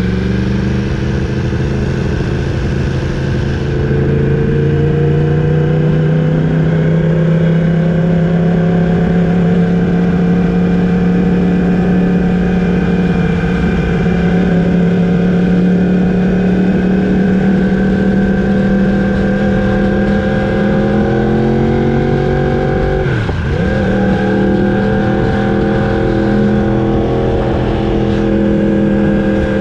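Yamaha R1's crossplane inline-four engine running under steady load, its note rising slowly as it pulls. About three-quarters of the way through, the pitch dips sharply and recovers, then holds steady.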